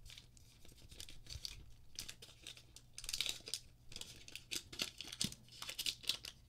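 Crinkling and tearing of the white protective wrap as it is peeled off a laptop's USB-C power adapter, in irregular bursts that grow busier about halfway through.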